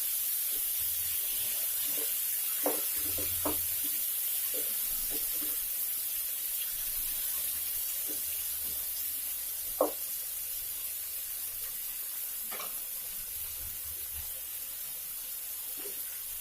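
Hot oil sizzling steadily in a non-stick pan with a mustard-seed, green-chilli and garlic tempering, with a few light clicks and taps scattered through.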